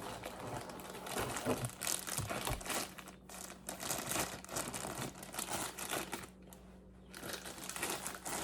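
Packaging being crinkled and rustled as it is handled and pulled away, uneven and on and off, with brief lulls.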